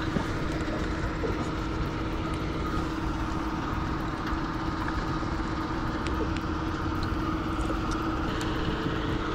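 Boat motor running steadily: a constant hum over low rumbling noise.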